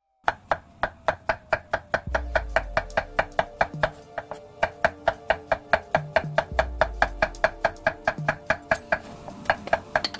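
Kitchen knife slicing a cucumber into thin rounds on a wooden cutting board: a quick, even run of cuts, about five a second, thinning out near the end. Background music plays underneath.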